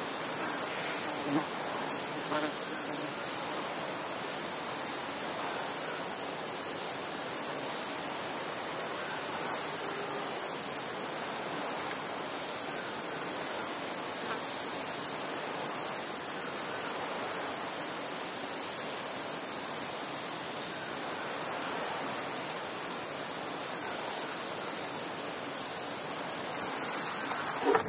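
Rainforest insects droning on one steady high pitch over a constant background rush.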